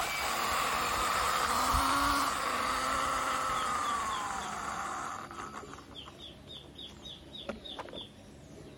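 Birds calling: a long call that rises and falls slowly over the first five seconds, then a run of short high chirps, about three a second. Two sharp taps near the end, as a plastic toy vehicle is set down on a hard floor.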